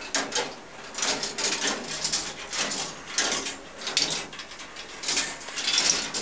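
Meccano ball machine running: metal gears, ratchets and ball lifts clicking and clattering as balls roll and drop along metal tracks, in uneven surges about every half to one second.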